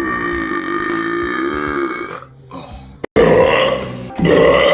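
A man belching one long, drawn-out burp at a fairly steady pitch for about two seconds. After a short break, a second man lets out two loud, rough burps about three and four seconds in.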